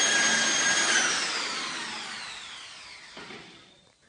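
Electric power drill running at full speed with a steady whine. About a second in it is switched off, and its pitch and loudness fall away together as the motor winds down over about three seconds.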